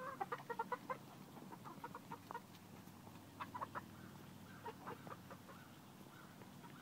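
Backyard chickens clucking: a quick run of short clucks in the first second, then scattered clucks every second or so.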